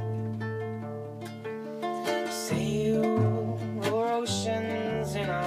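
Acoustic folk band playing an instrumental intro: an upright double bass plucks changing low notes under a strummed acoustic guitar. About two seconds in, a sliding, wavering melody line joins above them.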